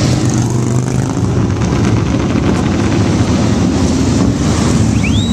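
Harley-Davidson motorcycles' V-twin engines running loud as the bikes ride past. Near the end there is a brief high whistle that rises and then falls.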